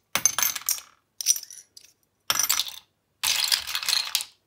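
Metal crown bottle caps clinking against each other, plastic caps and glass marbles as a horseshoe magnet is raked through them in a plastic bowl. The clatter comes in four short bursts, the longest near the end.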